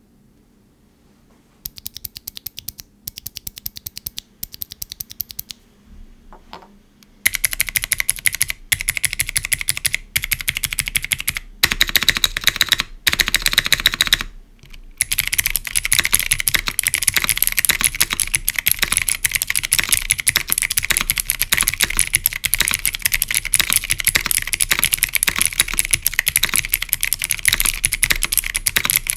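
Jerrzi x XCJZ Lotus clicky mechanical switches typed on a gasket-mounted, foam-free Neo75 CU keyboard with an aluminium plate and GMK keycaps. A few short groups of keystrokes begin after about a second and a half, then fast typing starts about seven seconds in and, after a couple of brief pauses, runs on continuously.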